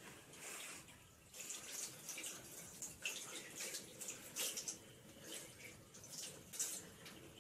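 Water from a bathroom sink tap running and splashing irregularly.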